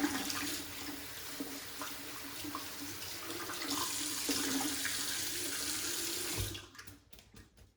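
Tap water running steadily into a bathroom sink, shut off about six and a half seconds in.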